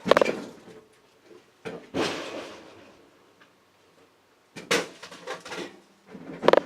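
Scrap metal being thrown off a truck and clanging as it lands: four separate metal impacts a couple of seconds apart, each with a short ringing tail.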